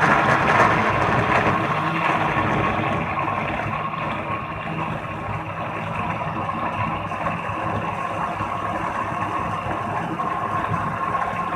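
Electric blender motor running steadily at full speed, a constant whine over the churning of wet tomato, ginger, green chilli, garlic and onion being ground into a paste.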